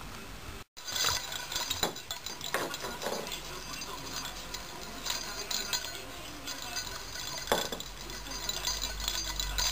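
A bell inside a plastic cat-toy ball jingling and rattling in irregular bursts as a kitten bats and chases it.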